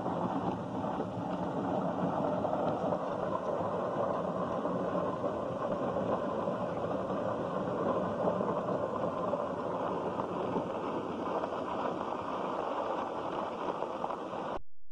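Steady running noise of a small open passenger vehicle's motor and its wheels on a gravel path, heard from the seat on board. The sound cuts out briefly near the end.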